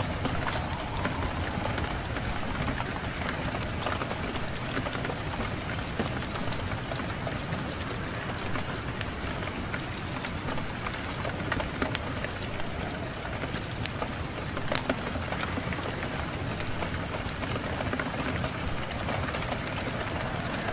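Fire crackling in a fireplace, with many sharp pops and snaps over a steady hiss, and wind blowing underneath.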